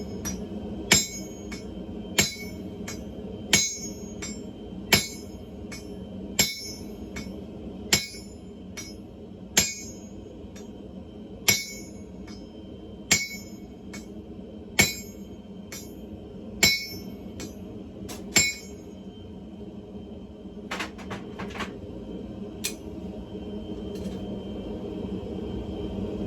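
Hammer blows on hot railcar spring steel over an anvil: about a dozen strikes, one every second and a half or so, each with a bright ring, then a few lighter taps near the end, over a steady low hum.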